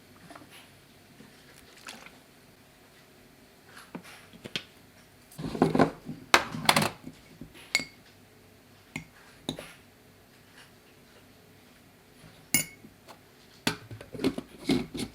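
Kitchen handling noises: scattered knocks and clinks of a container and dishes being moved, with a loud cluster about six seconds in and more near the end.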